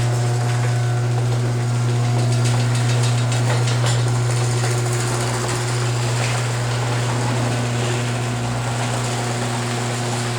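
Chamberlain HD200D chain-drive garage door opener running through a door travel: a steady motor hum with chain and trolley noise along the rail. The rail has been damped with tape to quiet it.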